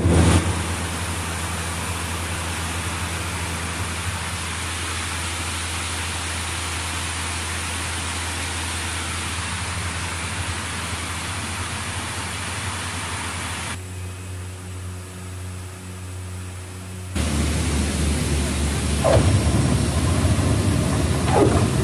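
Engines of a small propeller passenger plane heard from inside the cabin: a steady low drone under a loud, even rush of noise. About 14 seconds in it turns quieter and duller, then comes back at full strength about three seconds later.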